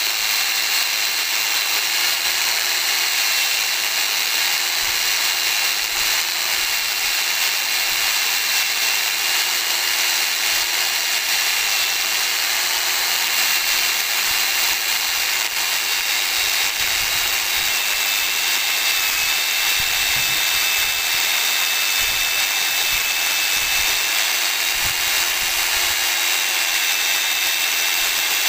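Angle grinder running at speed with a CD mounted as its cutting disc, grinding into a wooden dowel: a steady high whine over a rasping hiss. The pitch sags slightly now and then as it bites. The plastic disc is wearing away and melting into strands instead of cutting cleanly.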